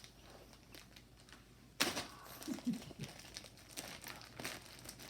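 Gift packaging crinkling and rustling as a present is handled and unwrapped, with a sharper crackle about two seconds in.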